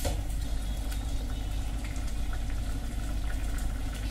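Thick jaggery-sweetened poha and coconut-milk payasam bubbling and crackling softly in a steel pan on low heat, over a steady low hum.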